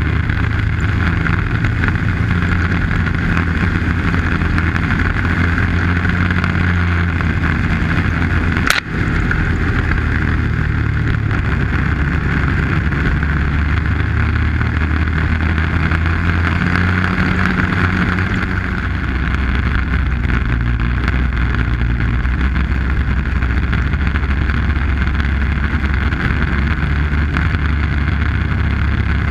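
Arctic Cat snowmobile engine running steadily at trail-riding speed. It eases off briefly about two-thirds of the way through. A single sharp click comes about nine seconds in.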